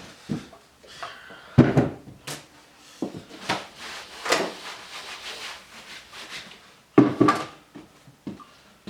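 Brake master cylinder and hand tools being worked on a bench during disassembly: a series of hard knocks and clunks, the loudest about a second and a half in and again about seven seconds in, with scraping and rubbing in between.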